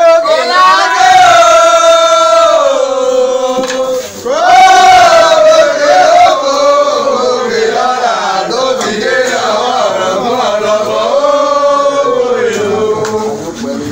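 A group of voices chanting loudly together in long held notes that bend and fall at the end of each phrase, with a brief break about four seconds in.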